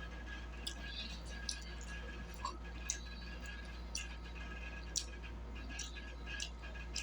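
Close-up eating sounds of fried catfish being chewed: soft chewing with sharp mouth clicks and smacks every second or so, over a steady low hum.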